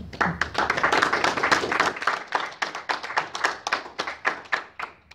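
A small audience applauding: dense clapping at first, thinning to a few scattered claps before it stops.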